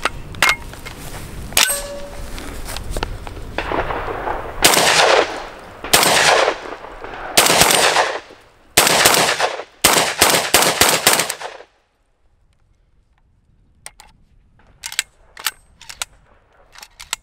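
Webley & Scott WEB-TAC box-fed semi-automatic shotgun firing a string of about ten shots, spaced a second or more apart at first, then quickening to several a second before stopping. A few faint handling clicks come before and after the string.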